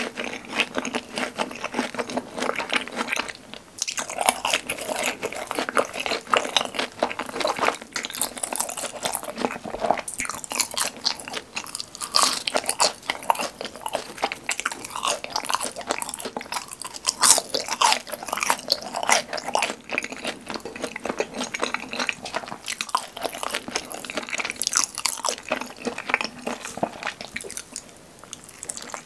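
Close-miked chewing of crispy fried cheese balls: dense, irregular crunching with no pause, growing quieter near the end.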